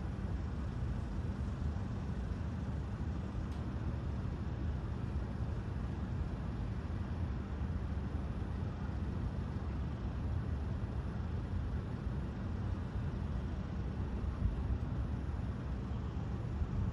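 Steady low rumble of road vehicles, traffic noise on a street with no single event standing out.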